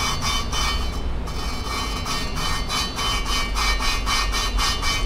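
Valve being hand-lapped into its seat in a Hellcat 6.2L HEMI cylinder head: a suction-cup lapping stick is spun back and forth between the palms, so the valve face grinds against the seat through valve grinding compound. Each stroke gives a gritty rasp, about four a second. The coarse sound shows the valve face and seat are still being smoothed to mate.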